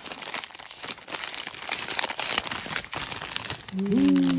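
A packaged curry bun's wrapper crinkling and rustling as it is opened and handled. Near the end, a short held vocal sound, like an "mm" or "ooh", comes in over it and is the loudest part.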